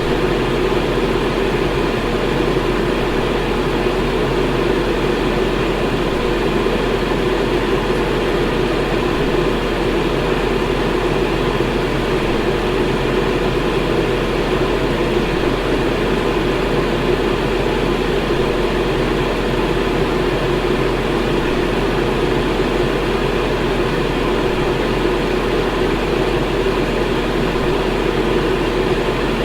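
Electric fan running steadily: an even whooshing rush of moving air with a low hum underneath, unchanging throughout.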